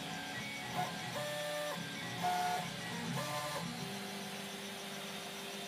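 Stepper motors of a CoreXY 3D printer whining in short pitched tones, each move at its own pitch, as the print head traces honeycomb infill at 20 mm/s. From about four seconds in, one steady lower tone holds.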